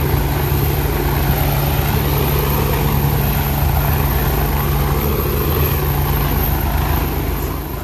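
Helicopter hovering low overhead: loud, steady rotor and turbine noise with a fast low rotor chop.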